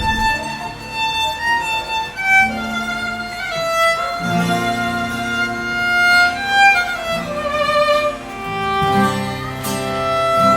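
Instrumental music: a violin plays a melody of held notes, sliding between some of them, over a low accompaniment.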